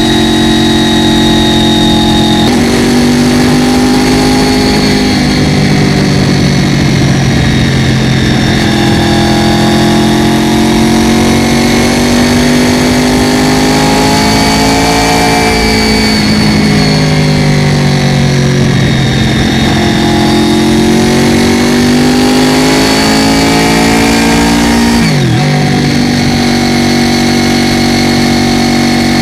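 Honda VFR800FI's V4 engine running under load, its pitch repeatedly climbing and falling as the throttle is opened and closed, with a sharp dip and quick recovery near the end.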